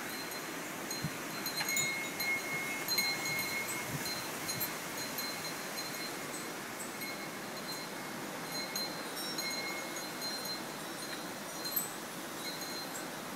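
Wind chime ringing on and off in the wind, a few high notes struck and left to ring, over a steady hiss of wind.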